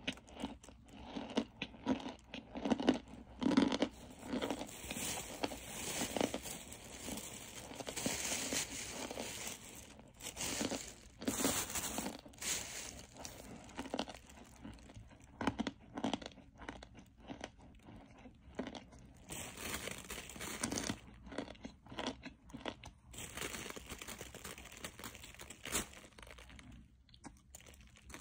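Close-miked biting and chewing of hard, crunchy chunks: a dense run of sharp, irregular crunches that thins out in the second half into softer chewing.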